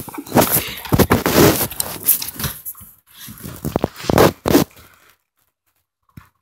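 Rustling, crackling handling noise of a phone's microphone rubbing against a dog's fur, in uneven bursts that die away about five seconds in, followed by one short click.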